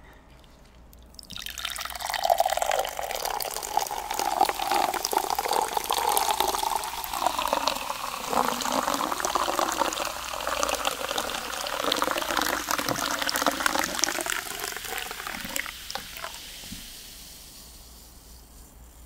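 Water poured in a thin stream from a plastic bottle held high into a drinking glass, splashing steadily. It starts about a second in and tails off over the last few seconds.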